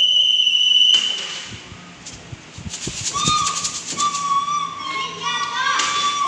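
A high, steady whistle tone held for about a second, then, after a short lull, a rapid shaken rattle with a lower whistle-like tone sounding in short stretches over it.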